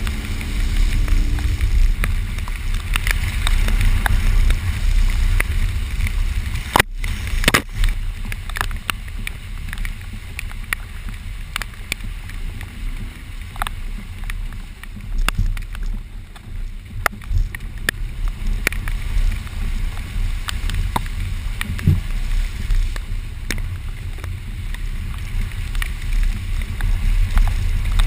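Subaru Forester driving along a rough, muddy trail, heard from inside: a steady low rumble of the drivetrain and tyres with scattered knocks and rattles as it goes over the ground. The sound drops out for a moment about seven seconds in.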